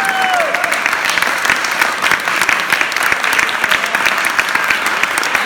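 Audience applauding: dense, steady hand clapping, with a short cheer right at the start.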